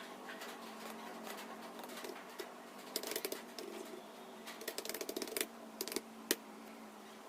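Computer keyboard typing: scattered keystrokes, then quick flurries about three seconds and five seconds in, and a couple of single taps near the end, over a steady background hum.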